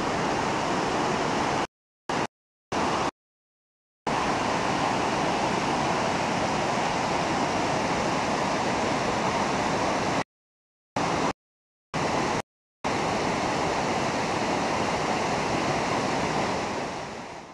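Waterfall: white water rushing down over rocks in a steady roar of noise. The sound cuts abruptly to dead silence several times, each for under a second, about two to four seconds in and again about ten to thirteen seconds in, then fades out at the end.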